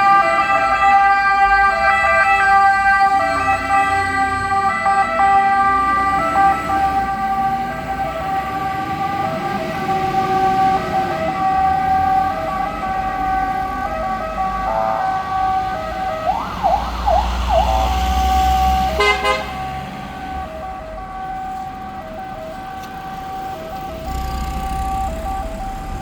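Sirens of Italian fire service vehicles, a Ford Ranger wildfire module and a MAN TGM 15.290 pumper, on an emergency run. A two-tone siren alternates steadily over a low tone that slowly rises and falls. A short burst of rapid yelp comes about sixteen seconds in, with a sharp sound near nineteen seconds, after which the sirens grow fainter.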